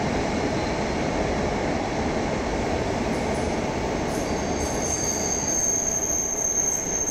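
Passenger train running past a station platform with a steady rolling rumble. From about halfway through, a thin high-pitched squeal from the train rises above the rumble and grows stronger toward the end.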